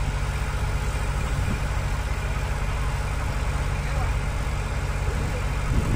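Excavator diesel engine running steadily, a low, even drone with no revving.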